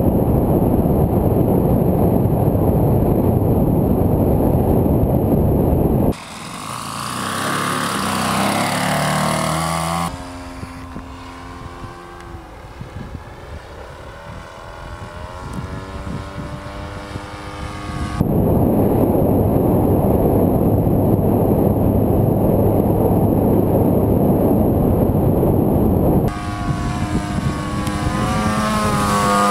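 Engine and propeller of a radio-controlled Fieseler Fi 156 Storch scale model in flight. Two long stretches of loud, rough wind-buffeted engine noise come from a camera riding on the model. They alternate with the model heard from the ground as a steadier drone whose pitch rises and falls as it passes. The sound changes abruptly at each cut.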